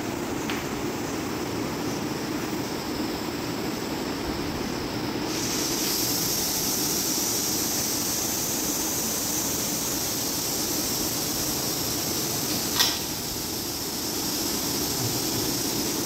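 Steady hum and hiss of dental-clinic equipment; about five seconds in, a high hiss switches on, such as the chair unit's suction or air line, and a single click sounds near the end.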